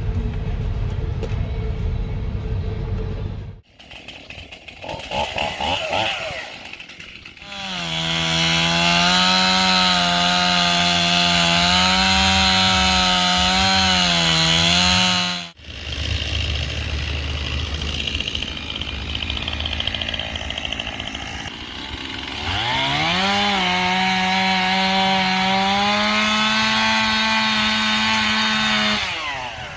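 Stihl MS 271 Farm Boss two-stroke chainsaw held at full throttle while cutting, heard in two long stretches split by abrupt edits. The second stretch revs up, holds steady and drops off near the end. A low rumble fills the first few seconds.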